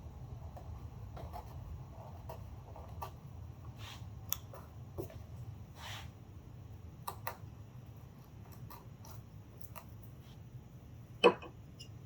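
Scattered scraping and clicking of a Stanley carving chisel cutting into soft pine, with a sharp knock about eleven seconds in.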